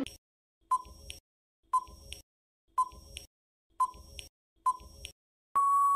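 Quiz countdown timer sound effect: five short beeps about a second apart, then one longer steady beep near the end that signals the answer time is up.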